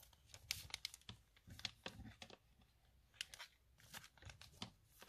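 Faint crinkling and rustling of clear cellophane sticker packets being handled, a scatter of short crackles.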